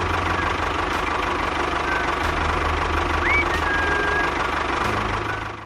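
Small engine running steadily with an even, low pulsing hum. A short rising whistle comes about three and a half seconds in, and the sound cuts off abruptly near the end.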